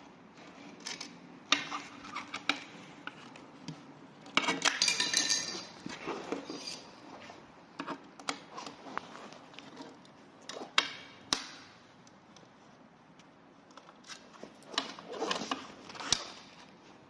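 A T-handle hex key turning out a screw from a scooter's deck plate: scattered metallic clicks and clinks of the tool against the screw and deck, with a brief patch of rattling about four seconds in and again near the end.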